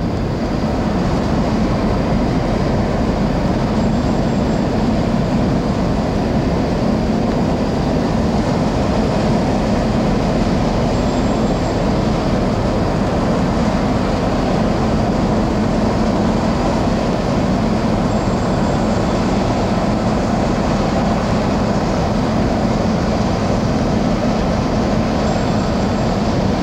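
The engines of the Sado Kisen car ferry Tokiwa Maru running with a steady low drone as the ship unberths and pulls away from the pier.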